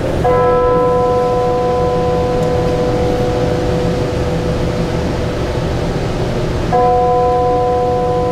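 A bell struck twice, about six and a half seconds apart. Each stroke rings on with a slowly fading tone over a steady low hum.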